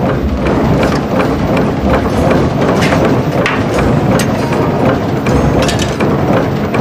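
Mechanical power hammer forging an axe head: a steady heavy machine din with irregular sharp metal knocks.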